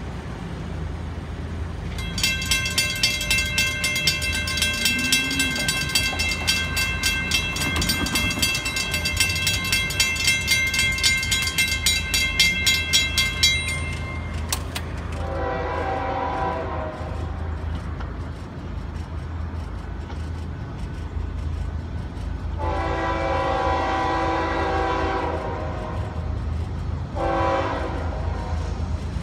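Grade-crossing warning bell rings rapidly for about twelve seconds as the gates come down, then falls silent. The horn of a GE ES44C4 diesel freight locomotive then sounds the crossing signal, long, long, short, with a further long blast starting near the end, over a steady low rumble.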